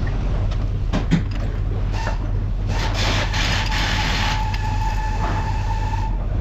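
Workshop noise: a steady low hum with a couple of sharp knocks about a second in, then a hiss with a steady high whine for about a second and a half, the whine carrying on a little longer.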